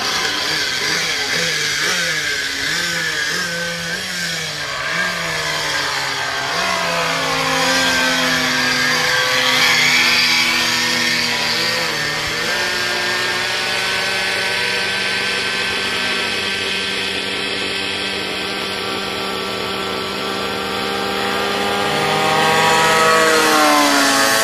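Engine of a Diabolo radio-controlled model airplane in flight. Its pitch wavers and glides up and down as it manoeuvres. It is loudest in a close pass near the end, where the note drops in pitch.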